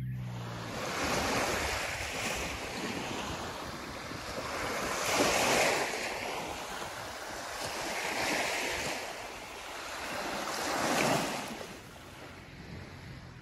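Small waves breaking and washing up a sandy beach, surging and ebbing about four times, the last wash fading near the end.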